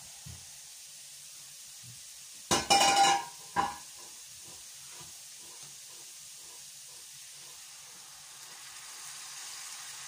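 Grated carrots sizzling in a pan on the stove, with a loud ringing metallic clatter of cookware about two and a half seconds in and a shorter knock just after. The sizzle grows a little louder near the end.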